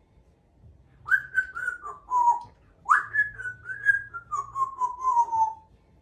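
Congo African grey parrot whistling two phrases, each a run of clear notes stepping down in pitch. The second phrase is longer and opens with a quick upward swoop.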